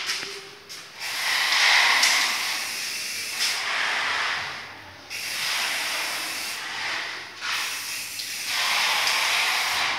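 Aerosol spray paint can hissing in a series of short bursts, about one to two seconds each with brief pauses between, as white paint is sprayed onto a ceiling.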